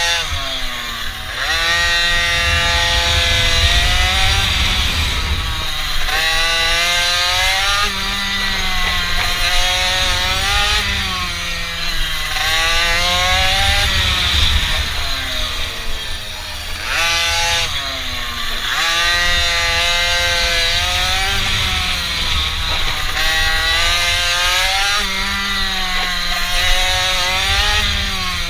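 Mini bike's small engine being ridden under changing throttle: its pitch climbs, falls away, and climbs again every few seconds, over a heavy low rumble.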